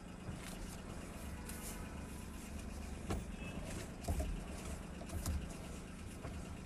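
Maruti Suzuki Alto 800's three-cylinder petrol engine idling, heard from inside the cabin as a steady low hum. A few soft knocks come from about three seconds in as the steering wheel is swung back and forth on the freshly repaired electric power steering.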